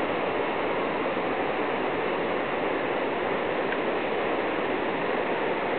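Steady, unbroken rushing roar of falling and churning water from the American Falls and the rapids above them at Niagara Falls.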